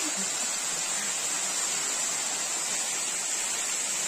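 Small waterfall pouring down between boulders: a steady rush of falling water.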